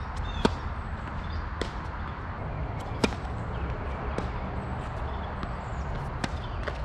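Tennis balls struck by rackets in a rally: a sharp pop of the serve about half a second in, then hits back and forth about every second and a half, the near player's shots loudest. A steady low rumble and hiss lies underneath.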